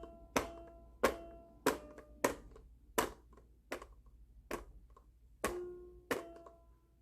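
About ten sharp knocks on a hard object, one every second or less, each leaving a short ringing note, like a toy being banged repeatedly.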